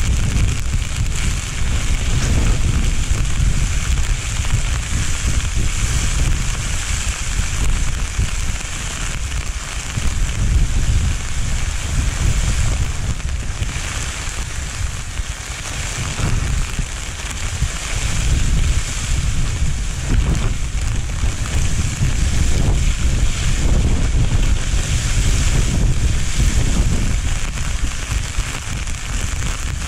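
Wind buffeting the microphone in gusts, over a steady rushing hiss.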